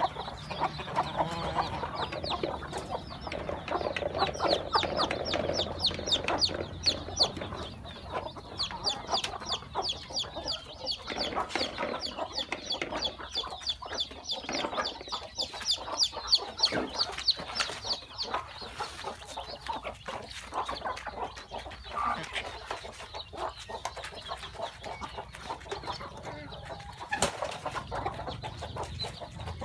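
A flock of chickens clucking as they feed, with chicks peeping in quick high calls for much of the time, thinning out in the later part. A single sharp knock comes near the end.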